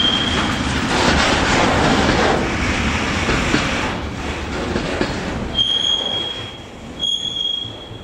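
Freight train wagons rolling past with a rumble that fades after about five seconds. The wheels squeal in a high steady tone just at the start and twice more near the end.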